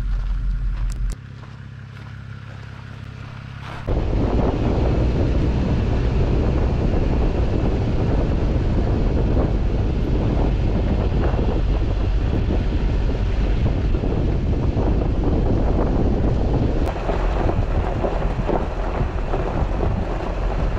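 A vehicle driving on a dirt road: a steady low rumble of engine and road noise, with wind buffeting the microphone. It starts about four seconds in, after a short, quieter stretch.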